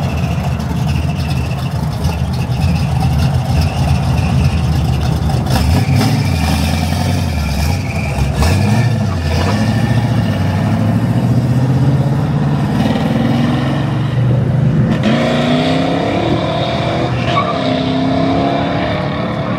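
A loud car engine running and revving hard, its pitch climbing about halfway through and again near the end as it accelerates.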